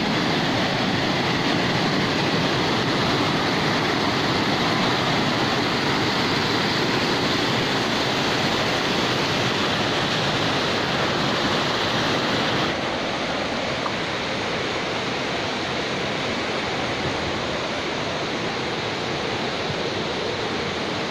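Stream water rushing and splashing over boulders in a rocky cascade, a steady rush that drops a little in level a bit past halfway.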